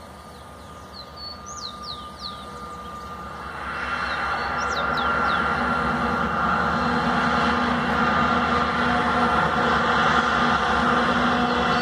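Diesel freight locomotives approaching. Their engine sound swells from faint to loud about four seconds in, then holds as a steady, loud hum with a low and a middle tone.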